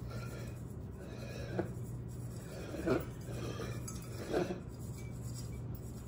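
Metal measuring cup clinking against glass bowls while crushed vanilla wafers are scooped and sprinkled, three light clinks about a second and a half apart.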